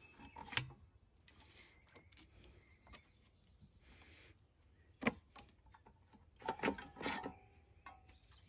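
Scattered plastic clicks and knocks as the recoil starter shroud of a Briggs & Stratton mower engine is worked loose by hand, with a sharp knock about five seconds in and a cluster of knocks around seven seconds.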